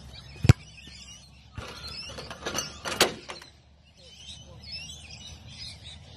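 A football kicked with a sharp thump about half a second in, then a clatter of knocks about two to three seconds in as a light goal frame tips over, with birds chirping.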